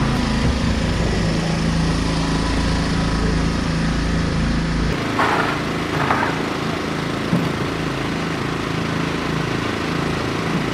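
A small engine running steadily, with a change in its sound about five seconds in. Two short rasping scrapes follow shortly after.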